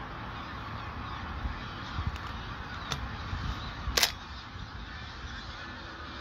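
A large flock of geese calling in flight, a continuous din of honking. A sharp crack stands out about four seconds in, with a fainter one a second before it.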